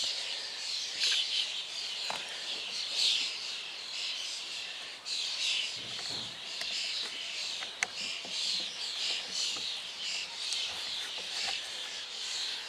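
Birds chirping steadily in repeated short phrases, with a few faint clicks of handling.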